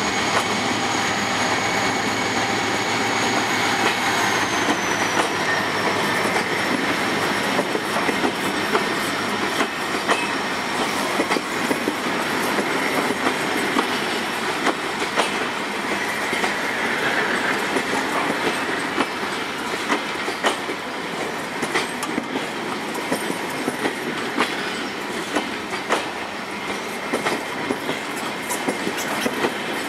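Passenger coaches of a diesel-hauled train running past close by at speed: a steady rumble with sharp wheel clicks over the rail joints. A thin high whine drops in pitch about four seconds in, just after the locomotive has gone by.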